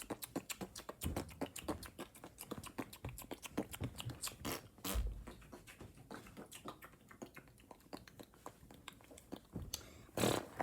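ASMR mouth sounds close to the microphone: a rapid, uneven run of wet tongue and lip clicks and smacks, with a louder breathy burst about halfway and another near the end.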